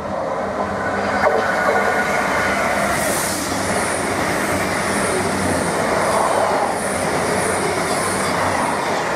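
A CrossCountry Voyager diesel-electric multiple unit running through the station: a steady rush of underfloor diesel engines and steel wheels on the rails, with a faint high-pitched wheel sound repeating at regular intervals as the carriages go by.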